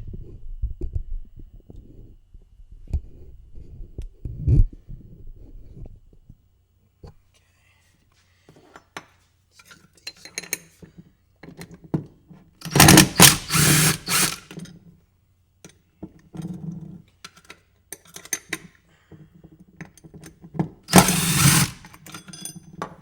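Drill with a 10 mm socket spinning tight nuts off a go-kart's wheel hub in two short bursts, the longer about 13 seconds in and another about 21 seconds in, with clicks and clatter of parts being handled in between.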